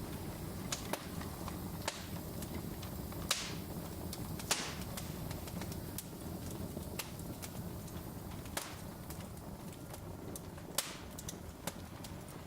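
Wood fire in a fireplace crackling, with irregular sharp pops and snaps over a low steady rumble of the flames. Two louder pops stand out a little after three and four seconds in, each with a short hiss.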